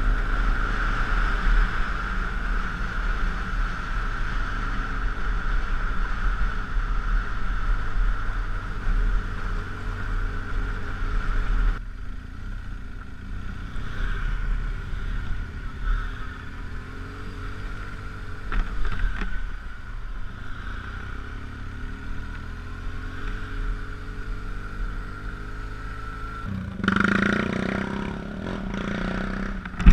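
BMW GS dual-sport motorcycle riding on a dirt and gravel road, recorded on a GoPro: steady engine and road noise with a steady hum. About twelve seconds in the sound changes suddenly to a quieter stretch, and it grows louder again a few seconds before the end.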